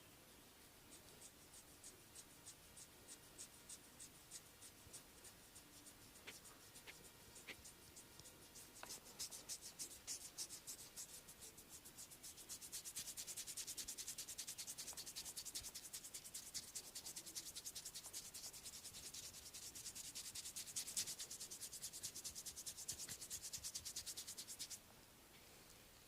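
Faint, rhythmic rubbing strokes of a hand massage, at first a few strokes a second. From about halfway they quicken into fast, dense rubbing, then stop abruptly near the end.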